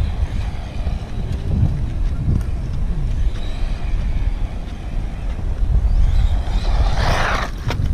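Wind buffeting the camera microphone: a loud, uneven low rumble, with a brief hiss about seven seconds in.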